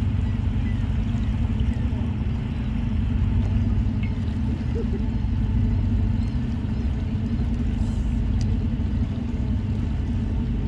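Dinner yacht's engines running at cruising speed, a steady low rumble.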